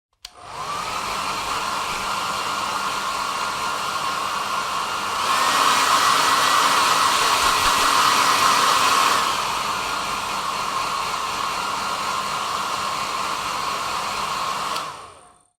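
Electric hair dryer switched on, its motor whine rising to a steady pitch over the rush of air. About five seconds in it runs louder and higher-pitched for about four seconds, then drops back. It is switched off near the end.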